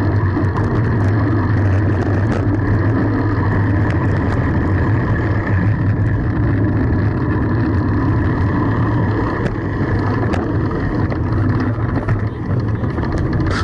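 Steady wind and road rumble on the microphone of a camera riding along on a moving bicycle, with a few faint clicks.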